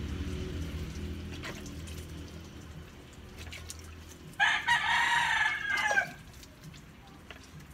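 A rooster crows once, about four seconds in. The call lasts under two seconds and drops in pitch at the end. Before it there is a low steady hum.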